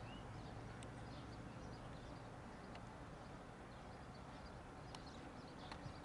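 Faint outdoor ambience at a football pitch: a steady low rumble, a few faint sharp knocks, and faint high chirps.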